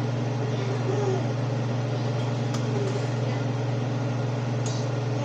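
Steady low hum of a running appliance motor, with a few faint clicks as metal tongs lift seafood out of a steaming pot.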